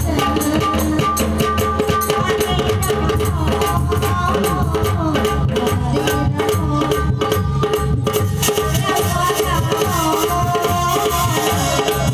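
Live Bengali kirtan devotional music played loud through a PA: a keyboard holding steady notes over fast, busy hand-drum percussion, with amplified singing.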